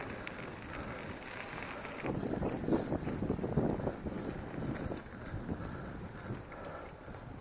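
Mountain bike riding on a dirt singletrack: tyres rolling and the bike rattling with many small clicks, busier about two seconds in, with wind on the microphone.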